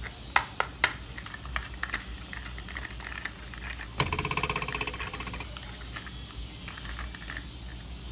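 Plastic toy truck being handled: a few sharp clicks and light ticks, then about four seconds in a short buzzing whirr from the toy that fades away over a second or so.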